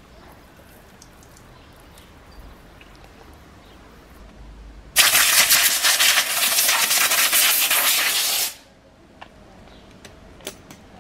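Loud blast of compressed air through a plastic coolant hose junction, starting abruptly about five seconds in and cutting off after about three and a half seconds, a fluttering hiss as cleaner and loosened calcium deposits are blown out of the pipes.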